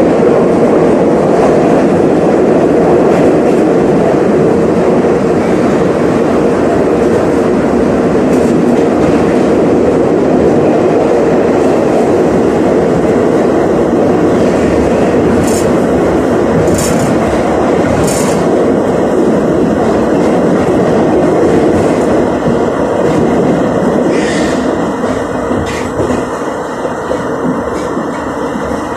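Metro train car running through a tunnel at speed, heard from inside the carriage: a loud, steady rumble of wheels on rails and tunnel noise, with three short sharp clicks around the middle. The rumble eases slightly near the end.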